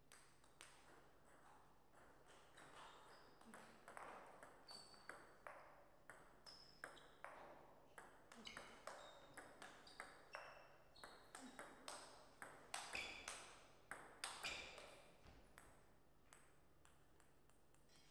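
Table tennis rally: the ball clicks sharply off the bats and the table, a couple of hits a second, louder toward the end and stopping about two seconds before the end.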